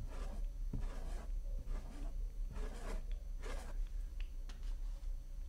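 Paint-loaded bristle brush scraping on a canvas in a series of short strokes, as oil paint is brushed upward in lines.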